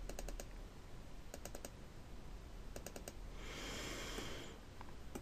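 Faint computer-mouse button clicks in three quick clusters, double-clicks to repeat a Push/Pull operation in SketchUp. A soft hiss follows a little past the middle.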